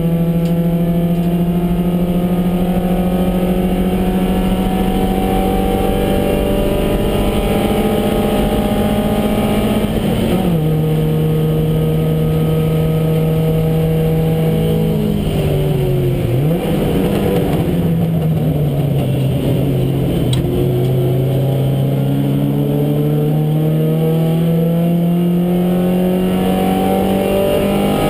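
Porsche 924 race car's four-cylinder engine heard from inside the cockpit, running hard. The note climbs slowly, drops sharply about ten seconds in, then falls further with a quick blip of revs past the middle as it is downshifted. It then rises steadily under full acceleration and drops again with a gear change at the end.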